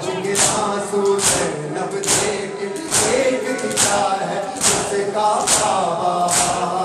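A hall full of mourners performing matam: many open hands striking bare chests in unison, eight beats at about one every 0.85 s, under a nauha (Shia lament) sung together.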